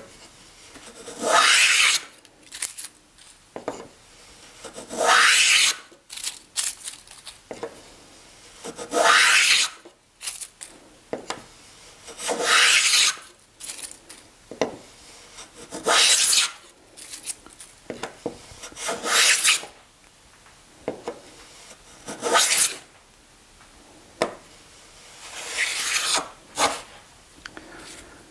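Wooden mini panel-raising plane being pushed along the edge of a board, taking a shaving with each pass. There are about eight strokes, one every three to four seconds, each a short scraping cut, with light handling sounds between them.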